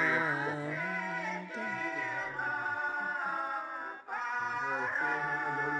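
Vocal music: long held, sung notes with a brief break about four seconds in.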